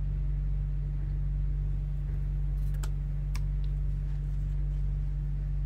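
A few sharp knife knocks on a cutting board about halfway through, as lotus root is sliced about 1 cm thick, over a steady low hum.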